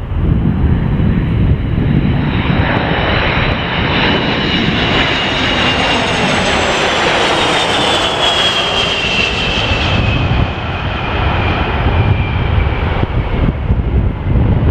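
Boeing RC-135 Rivet Joint's CFM56 turbofans passing close on approach: a loud jet roar with a high fan whine that slides slowly down in pitch as the aircraft goes by, over gusty wind rumbling on the microphone.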